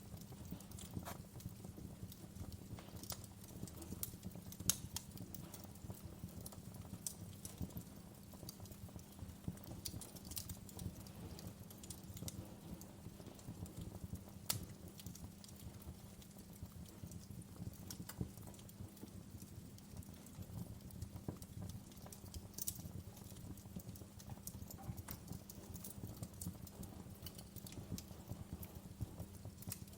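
Wood fire crackling in a fireplace: a dense low crackle of burning logs with frequent sharp pops, a few of them louder.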